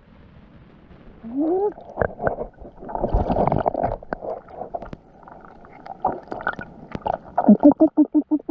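Underwater water sounds: muffled gurgling and bubbling with scattered clicks and knocks. A short rising gurgle comes about a second in, and a quick run of bubbling pulses near the end.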